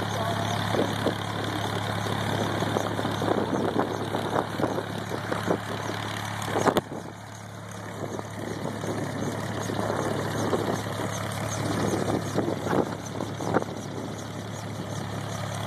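Bell 47 helicopter's piston engine and main rotor running at ground idle with a steady low hum. Irregular gusty noise runs over it, and a sharp click comes about seven seconds in.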